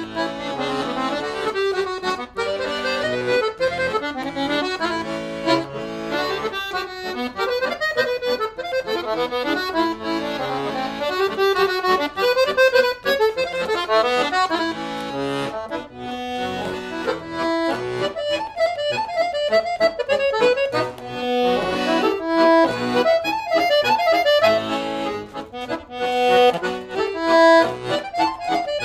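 Pigini chromatic button accordion playing a kolo, a Balkan folk dance tune, as a quick melody of rapidly changing notes over bellows-driven chords.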